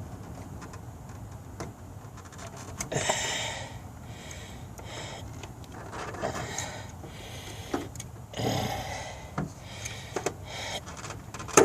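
Scraping and handling noises from work on a rubber heater hose, coming in several short bursts, with a sharp click near the end.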